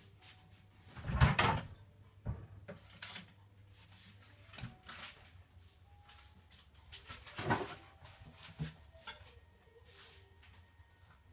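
Scattered knocks and clatters of things being handled in a kitchen, a louder knock about a second in and another at about seven and a half seconds.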